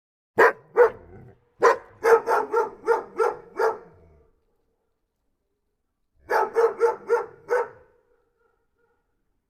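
Dog barking in quick runs: two barks, then a rapid string of about seven, a pause of about two seconds, and another string of about six.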